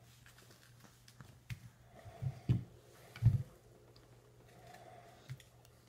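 A toddler handling, biting and chewing a piece of soft fruit: scattered soft thumps and wet mouth clicks, the loudest about three seconds in, over a faint steady hum.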